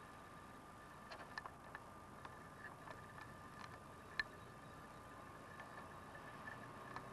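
Faint camcorder noise: a thin steady whine with a scatter of small irregular clicks as the camera is moved, the sharpest click about four seconds in.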